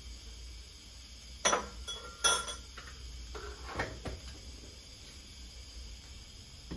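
Dishes and cutlery clinking: two sharp clinks close together, then a few lighter knocks.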